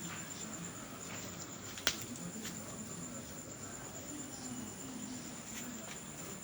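Steady high-pitched insect trilling, like crickets, with a single sharp click about two seconds in.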